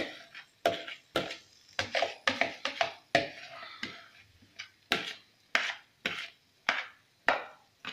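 A spoon knocking and scraping marinated chicken pieces out of a plastic bowl and across a non-stick frying pan: a string of short clicks and scrapes, roughly two a second.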